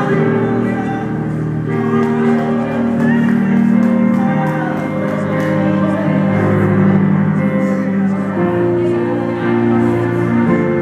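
Slow worship music of long held chords that change every few seconds, with a voice singing or calling over it.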